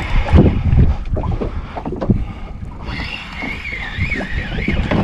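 Wind buffeting the microphone on a small boat at sea, in irregular low gusts, strongest in the first second. A thin wavering high tone comes in about three seconds in and lasts over a second.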